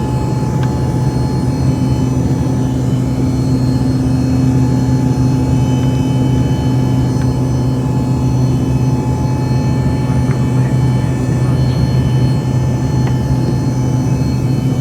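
American Eagle airliner's engines running steadily at high power during takeoff: a loud, even drone with a constant hum and high whine, holding the same pitch throughout.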